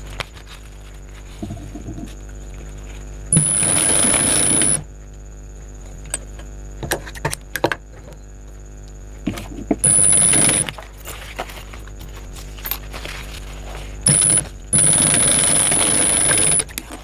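Primex high-speed industrial sewing machine stitching bag fabric in three short runs, each with a steady high whine: about a second and a half, then under a second, then about two seconds near the end. Between runs, fabric handling makes small clicks and rustles.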